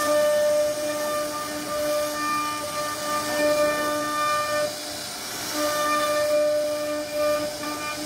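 CNC router spindle whining steadily as its bit cuts a wooden door panel, with a hiss of the cut over the whine. The whine weakens for about a second midway, then returns.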